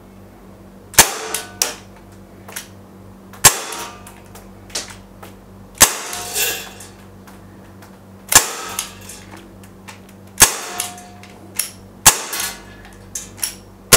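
Smith & Wesson M29 CO2-powered .177 BB revolver firing a string of single shots, about one every two seconds. Each shot is a sharp crack.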